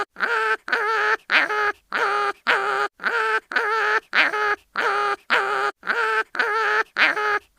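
Cartoon animal crying-in-pain sound effect: a rapid string of short, pitched, nasal yelps, about two a second, some starting with a quick upward squeal, repeating as a loop.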